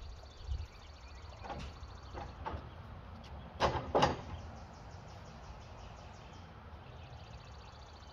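Wooden lumber stand being set onto a flatbed utility trailer's wooden deck: a few light knocks and scrapes, then two loud thuds about half a second apart a little under four seconds in as it lands on the deck.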